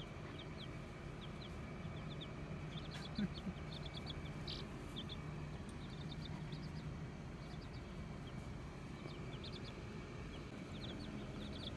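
Baby chicks (buff Orpingtons, Olive Eggers and a Barred Rock) peeping: short, high peeps scattered in little runs.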